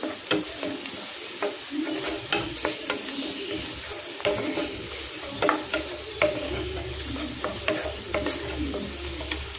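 Chopped onions and green chillies sizzling in coconut oil in a nonstick pan while a wooden spatula stirs them, with irregular clicks and scrapes of the spatula against the pan over a steady frying hiss.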